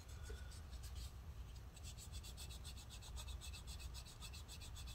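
Folded paper towel rubbing sticky liquid-spill residue off a laptop's internals in quick back-and-forth strokes, faint, with the strokes coming fast from about a second and a half in.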